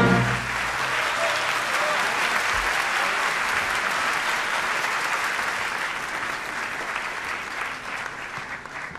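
Audience applauding, starting as an orchestra's final chord cuts off and fading gradually toward the end.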